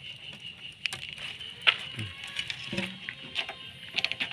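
Dry leaf litter crackling and rustling as cats move about on it, with scattered sharp clicks and a steady high-pitched drone in the background.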